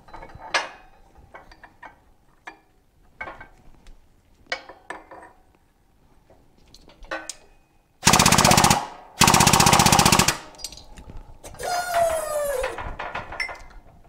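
Shop press at work on a Suzuki TC125 wheel hub while a bearing is pressed in. There are light metal clinks as the hub and press tooling are set up, then about eight seconds in two loud, rapid rattling bursts of about a second each, followed by a squeal that falls in pitch.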